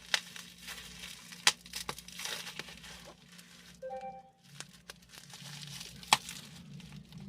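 Bubble wrap and plastic packing crinkling and tearing as a parcel is unwrapped by hand, with a few sharp clicks.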